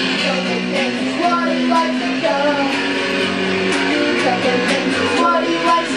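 Background music led by guitar, with held notes under a wavering melody line.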